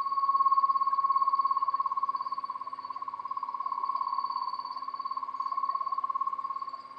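Small electric motor squealing steadily: a high, dry-bearing whine that pulses rapidly and swells and fades every second or two, over a faint low hum. It is running dry and needs oiling or it will burn out.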